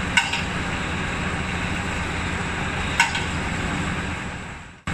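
Steady hum of forging-line machinery in the workshop, with two sharp metal clanks about three seconds apart. The noise fades out near the end and cuts off.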